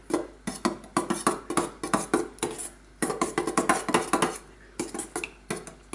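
Metal spoon stirring thick yogurt sauce in a stainless steel bowl: quick, repeated clinks and scrapes against the bowl, several a second, with the bowl ringing slightly and a brief pause about three seconds in.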